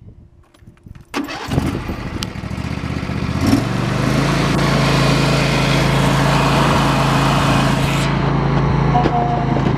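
Riding lawn mower's engine being cranked by its electric starter, catching about three and a half seconds in and then running steadily.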